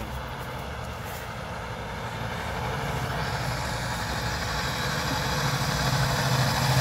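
Semi truck's diesel engine pulling up a muddy dirt grade, growing steadily louder as the truck comes closer.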